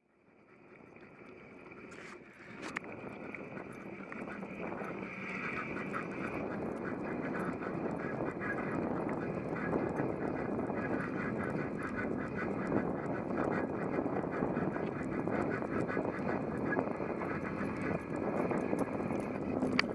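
Bicycle riding noise, wind on the microphone and tyres on concrete, with the quick patter of a dog's paws trotting alongside on the pavement. It fades in over the first several seconds, then holds steady.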